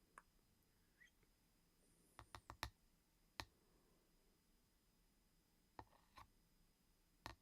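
Close, crisp clicking: a quick run of four clicks about two seconds in, then scattered single clicks, with one more near the end.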